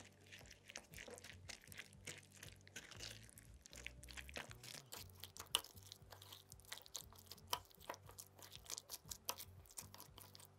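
Wooden spoon stirring a thick tuna salad in a small glass bowl: a run of quick, irregular clicks and taps of the spoon against the glass, with wet squishing of the mixture. The clicks come thicker and sharper from about the middle on.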